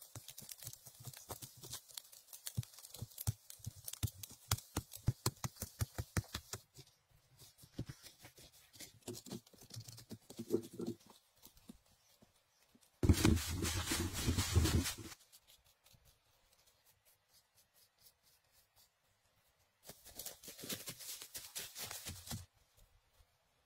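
Dry fallen leaves crunching and rustling as a person moves and works in them, in quick crackling strokes for the first several seconds. A louder, rougher burst of rustling comes a little past halfway, and a shorter one near the end.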